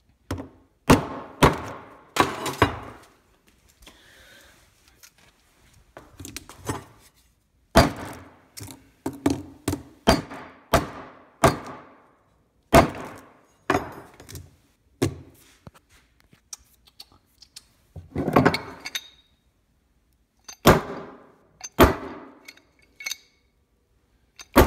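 Repeated hard blows of metal hand tools, first a crowbar and later a monkey wrench, smashing an old smartphone with a cracked glass screen. The strikes are sharp clacks that come in irregular runs of two or three, with pauses of a second or more between the runs.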